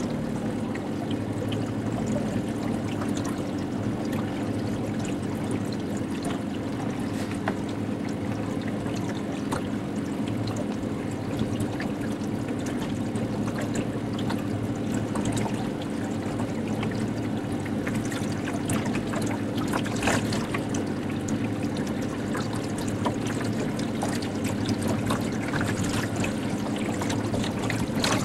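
Outboard motor running at a steady speed, pushing a small aluminium boat, with water splashing and lapping against the hull.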